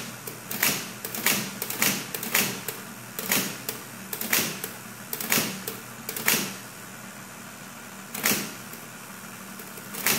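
1940s IBM Electromatic electric typewriter being tested key by key: sharp clacks of its type bars about twice a second over the steady hum of its running motor, with a pause of a second or so past the middle. The keys register unreliably, some not at all and some twice, which the owner thinks needs the power drum cleaned.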